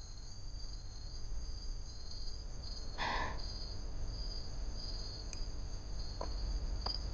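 Crickets chirping in an unbroken chorus, with a brief soft noise about three seconds in.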